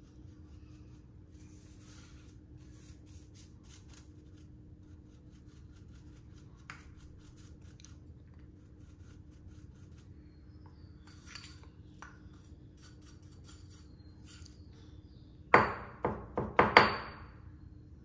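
Faint, irregular scratchy strokes of a small brush cleaning the parts of a disassembled Timemore C3 ESP hand coffee grinder. Near the end comes a quick run of loud clinks and knocks of small hard parts.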